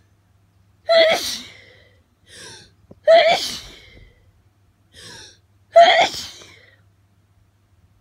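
A person sneezing three times in quick succession, about every two and a half seconds, with a quick gasping breath before the second and third sneeze: a hay fever attack set off by pollen.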